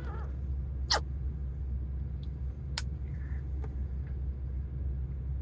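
Steady low hum of a truck idling, heard from inside the cab, with a few short sharp clicks about a second in and near three seconds.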